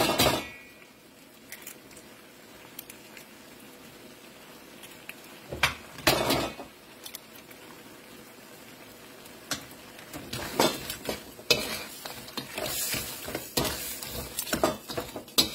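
Crab in chili sauce sizzling in a wok while a spatula scrapes and clatters against the pan. There is a sharp knock right at the start, and the stirring gets busier in the last few seconds.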